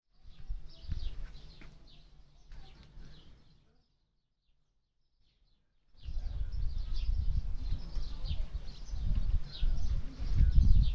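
Small birds chirping repeatedly, over a low, gusting rumble of wind on the microphone. Everything cuts out for about two seconds midway, then the chirping and rumble return louder.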